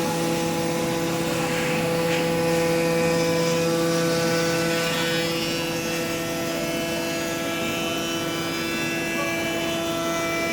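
CNC machine running steadily, its motor giving a constant hum with a whine that holds an even pitch.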